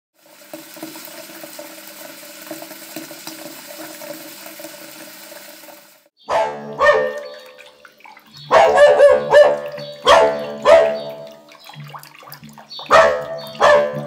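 Sea waves washing on the shore for about six seconds. Then dogs bark loudly in a run of sharp, separate barks, several in quick succession around the middle.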